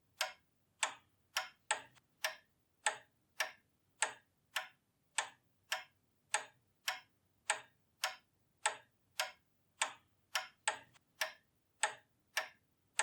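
Pendulum clock ticking steadily, just under two even, sharp ticks a second.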